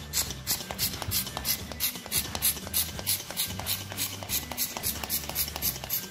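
Small hand pump for bike tyres and balls worked in quick strokes, a rhythmic puff of air several times a second, as it inflates an 18-inch clear bubble balloon.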